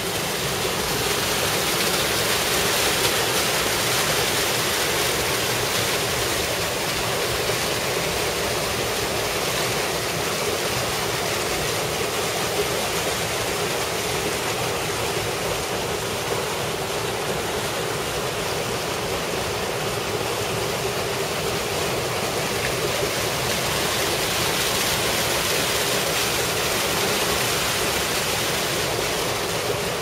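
Steady rush of water from a mountain stream cascading over rocks into a rock pool.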